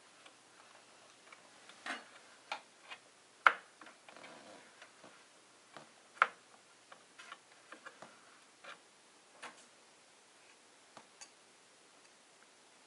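Irregular clicks and knocks of an Asus PCE-N10 wireless card and its metal bracket against the desktop's expansion slot and steel case as it is worked into place, a fiddly fit. The two loudest knocks come about three and a half and six seconds in.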